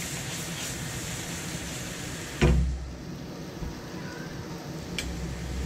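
Prawns sizzling in a frying pan as it is shaken over a gas burner, then the pan set down on the stove grate with a loud knock about two and a half seconds in. After that the sizzle is quieter, with a light click near the end.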